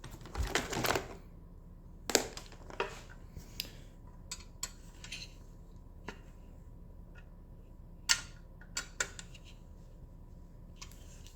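Small metal and plastic headlight parts being handled and fitted: a brief rustle in the first second, then about ten scattered sharp clicks and clinks, the loudest about two seconds in and about eight seconds in.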